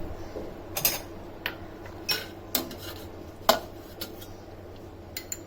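Kitchen utensils clinking against cookware as crushed spices are added to a pot of water: about half a dozen short, sharp clinks and taps spread over several seconds, the loudest about three and a half seconds in.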